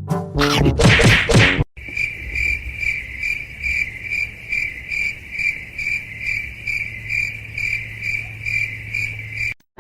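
A short loud voice-like call, then a steady high chirping that pulses about two and a half times a second over a low hum, ending suddenly near the end.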